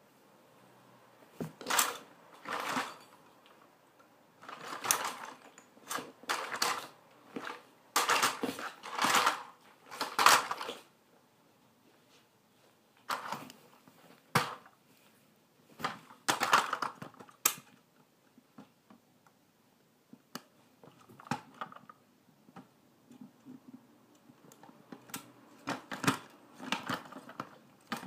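Toy trucks and cars being stepped on and kicked by high-heeled pumps: plastic crunching, clattering and scraping in irregular bursts, the loudest about eight to ten seconds in, sparser and quieter in the later part.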